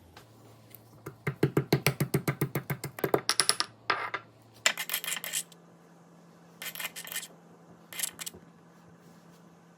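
A fast run of sharp knocks, about eight a second for two seconds, then a few shorter bursts of knocks, from kitchen prep work on ginger and black peppercorns.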